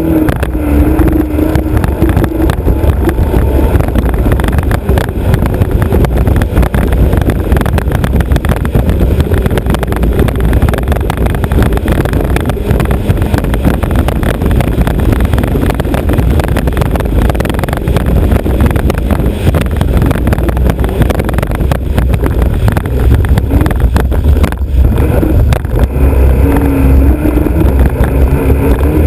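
A racing hydroplane's Alfa Romeo Autodelta 2.5-litre V6 running hard, heard from the bow amid heavy wind and water rush on the microphone. A clearer engine note stands out near the start and again near the end.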